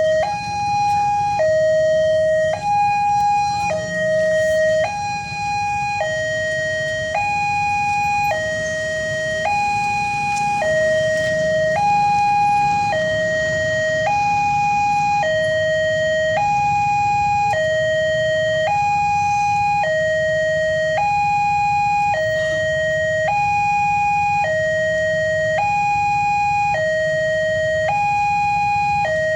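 Railway level-crossing warning siren sounding a two-tone hi-lo alarm, a higher and a lower tone alternating evenly, each held about three-quarters of a second, over a low steady rumble.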